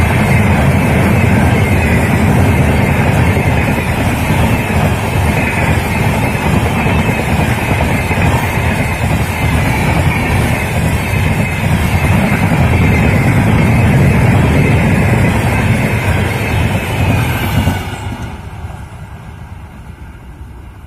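Diesel-hauled Indian Railways express train passing at speed: a loud, steady rumble of the engine and wheels on the rails. About 18 s in it drops off sharply, then fades as the train moves away.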